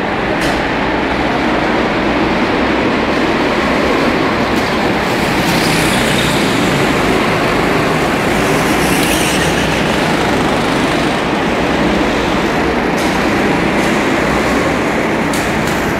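Go-karts lapping an indoor track: a loud, steady din of kart engines filling a large hall.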